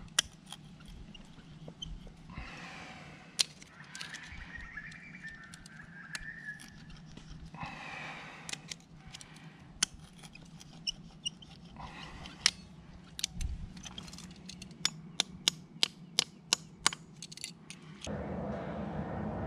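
Small vice grips clamped on the steel sleeve of a sleeve anchor (dynabolt), being wiggled to work the wedged sleeve out of its hole in the rock: a long run of sharp metallic clicks and small scrapes, coming faster in the second half.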